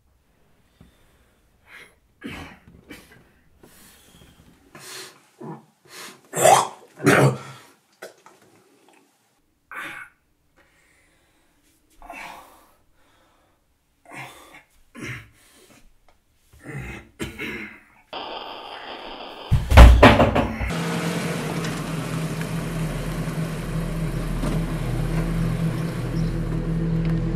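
A person coughing in short separate fits, loudest about six to seven seconds in. About twenty seconds in there is a sudden loud low thud, and then a steady low music drone with held tones sets in and continues.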